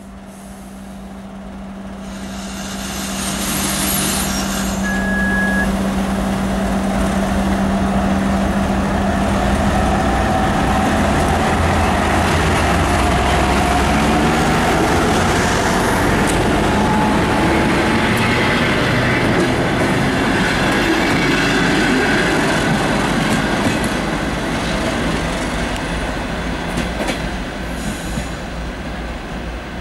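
2M62U twin-section diesel locomotive pulling away with a passenger train. Its two-stroke diesel engines give a steady hum that grows louder for the first few seconds, with a brief high squeal about five seconds in. The carriages then rumble past on the rails and fade as the train leaves.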